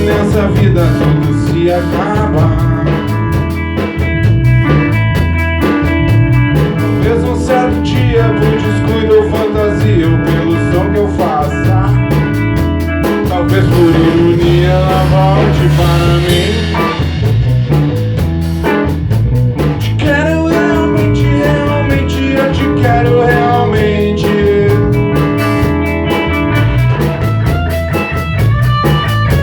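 A band playing an instrumental passage at rehearsal: guitar over a drum kit, with the guitar's notes bending in pitch around the middle.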